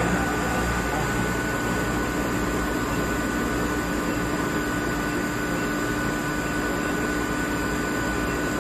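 Campbell Hausfeld rotary screw air compressor running steadily: an even mechanical hum with a few constant whining tones.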